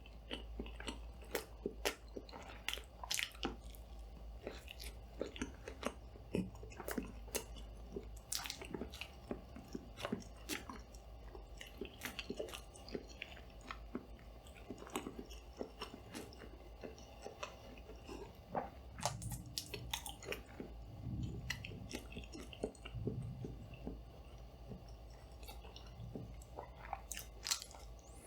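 Close-miked eating: irregular crunching bites and chewing, over a steady low hum from the added studio light, whose noise the uploader calls worse than expected.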